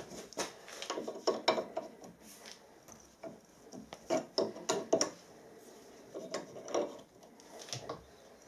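Hand tap being turned into a very hard bronze-steel alloy in a repaired cast-iron casting, creaking and clicking in irregular bursts as each turn bites, with quiet pauses between.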